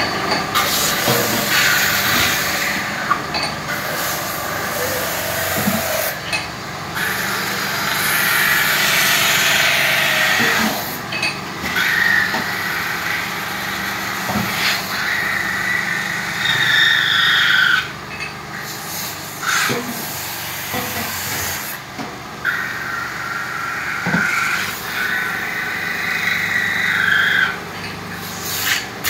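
Aluminium spun on a metal-spinning lathe, with a hand-held tool pressed against the turning metal to form and trim it. The tool gives a harsh scraping squeal that comes and goes in passes of a few seconds, over the steady hum of the running lathe.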